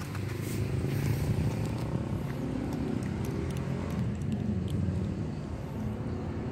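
A motor vehicle's engine running nearby: a steady low rumble. A few faint short ticks sound over it.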